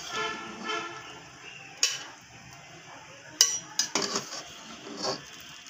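Metal slotted spoon scraping and clinking against a steel cooking pot while boiled beef liver is scooped out of its water. There are a few sharp clinks, about two, three and a half, and four seconds in.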